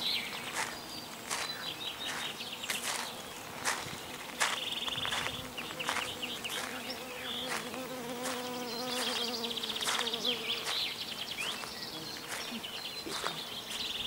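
Insects stridulating in the summer trees: rapid, buzzing trills about a second long that come and go several times. Footsteps click now and then, and a low steady hum runs through the middle few seconds.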